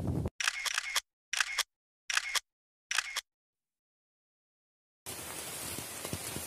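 Four camera-shutter clicks about 0.8 s apart, each short and sharp, with dead silence between them. About five seconds in, steady rain begins, an even hiss on surfaces.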